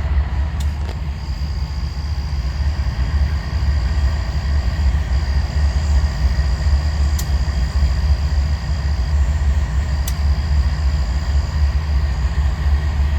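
A train's deep, steady rumble, most of it very low in pitch, with no pauses or changes.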